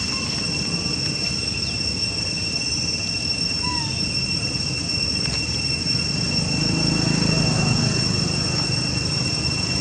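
Steady, high-pitched insect drone holding two pitches, over a low background rumble, with one short chirp about four seconds in.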